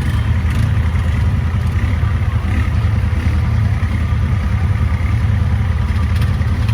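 ATV engine running steadily with an even, deep drone, and a couple of faint clicks.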